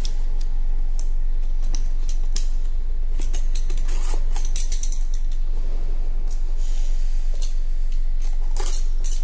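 A small cardboard product box being opened by hand: irregular scratching, clicking and tearing of tape and flaps, over a steady low hum.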